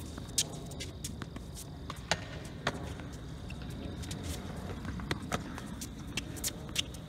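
Tennis balls bouncing and footsteps on an outdoor hard court: irregular sharp knocks, about a dozen, over a faint steady background.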